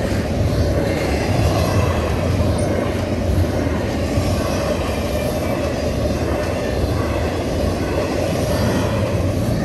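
Double-stack intermodal freight cars rolling past at speed: a steady rumble of steel wheels on the rails.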